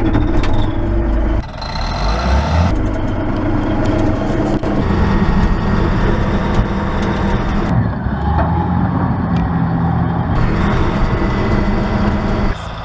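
Bulldozer's diesel engine running loud and steady under working load, with abrupt changes in the sound several times as clips are cut together.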